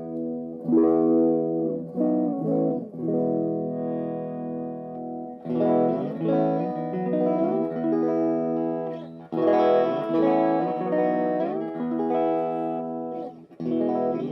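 Fernandes Limited Edition Strat electric guitar playing chords. Each chord is struck and left to ring, with a new one every one to four seconds.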